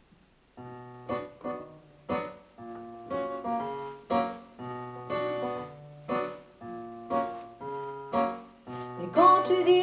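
Roland digital stage piano playing a song's introduction: accented chords about once a second over sustained bass notes, growing louder near the end.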